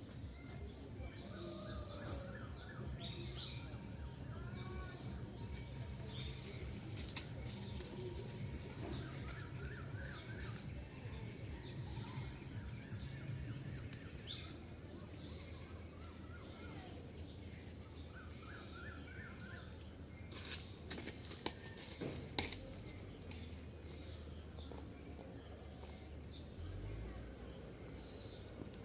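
Countryside ambience: scattered bird chirps and calls over a steady high-pitched insect drone, with a few sharp clicks about two-thirds of the way through.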